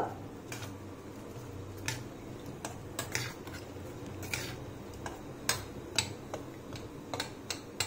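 Steel spoon clicking and scraping against a steel bowl while mashing boiled moong dal, in irregular light taps about one or two a second.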